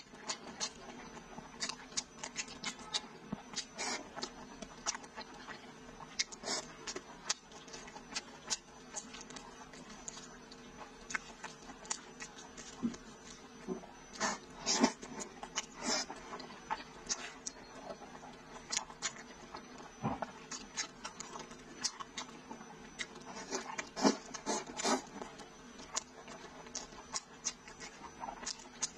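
Close-up mouth sounds of a person eating sticky braised pig trotter and wide noodles: irregular wet smacks, clicks and chewing, with louder clusters about halfway through and again near the end.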